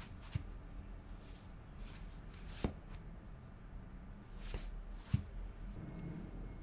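Handling sounds of an iPad in a silicone case being turned from portrait to landscape and set back on its stand: soft rubbing with four sharp little taps and clicks.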